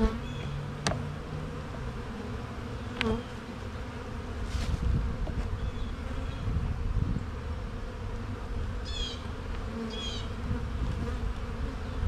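Honeybees buzzing steadily around an opened hive. Two sharp knocks, about one and three seconds in, come as a wooden frame is set back into the hive box.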